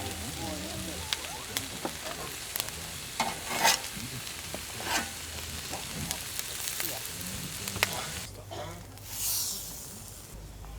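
Cuban sandwiches sizzling in a hot pan, with sharp clicks and scrapes from time to time. The sizzle drops away briefly near the end.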